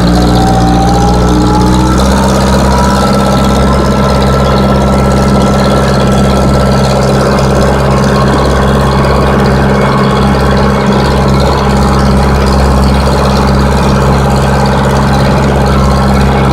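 Case 580E backhoe's diesel engine running steadily, heard from inside the cab, with a fainter whine that rises over the first two seconds and then holds steady.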